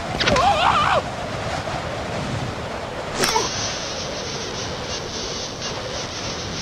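Cartoon sound effects: a short warbling character vocalisation near the start, then a steady wind-like hiss that gains a high whistling edge about three seconds in.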